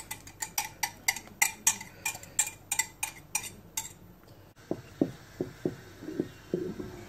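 A metal whisk clinks rapidly against the sides of a stainless-steel pot while it beats flour slurry into thickening soup, about three sharp clicks a second. After about four and a half seconds this gives way to a few duller knocks of a spoon stirring the thick soup against the pot.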